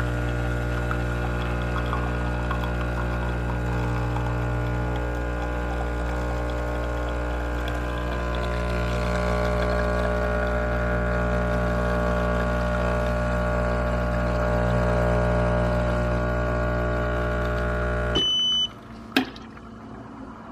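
Automatic espresso machine's pump running steadily as it brews an espresso shot, cutting off suddenly about 18 seconds in. A short beep and a click follow.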